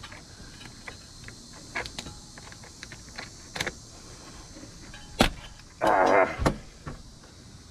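Hose clamp pliers working a spring-band hose clamp on a rubber upper radiator hose: scattered light metal clicks, a sharp snap about five seconds in, then a short, louder burst of noise and another click.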